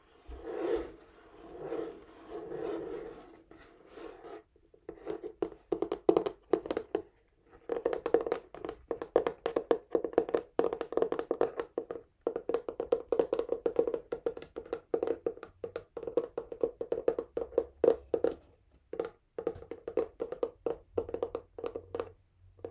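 Fingernails scratching on a textured cardboard box for the first few seconds, then tapping on it fast and hard, in quick irregular runs with a couple of brief pauses.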